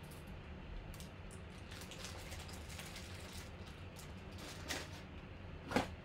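Faint scattered clicks and taps over a steady low hum, with two sharper clicks about a second apart near the end, the second the loudest.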